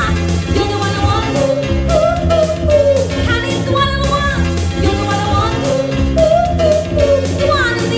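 A woman singing into a handheld microphone over amplified music accompaniment with a steady drum beat.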